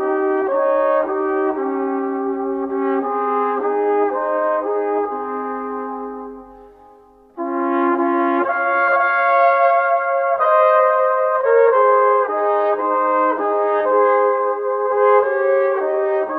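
Background music with a brass melody in held, stepwise notes. It fades out about six seconds in, then starts again abruptly about a second later.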